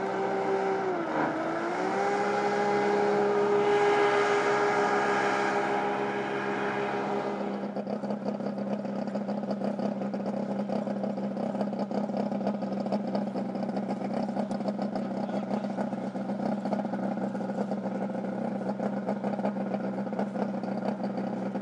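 Hovercraft engine and lift fan running. About a second in the pitch dips and comes back up, then holds steady. From about seven seconds it is heard up close on board: a steady low drone under a dense rushing noise.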